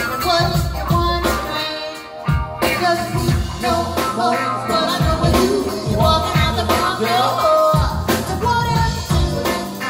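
Live soul band playing through a PA: electric guitars, bass, keyboards and drums with a steady beat, and a singer's voice over the band.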